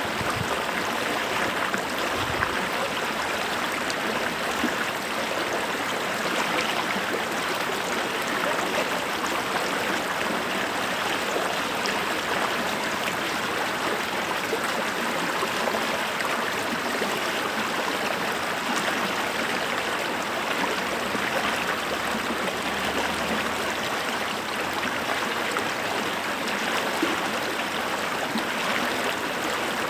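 Running water rushing and gurgling steadily without let-up.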